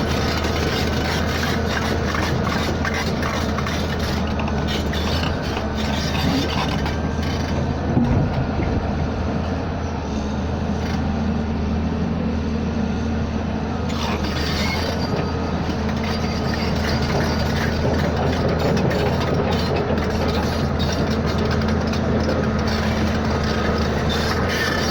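A machine or engine running steadily, a constant low hum with a few steady tones and a faint rattle over it.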